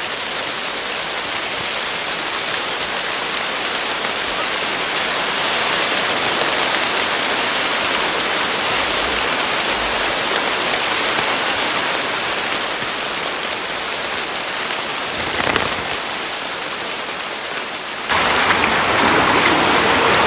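Steady hiss of rain falling in a rainforest. About 18 seconds in it steps abruptly to a louder, steadier rush of water.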